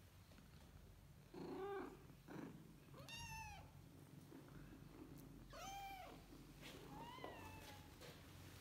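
Kitten meowing four times: short, arched meows a second or two apart, the first lower and shorter than the rest.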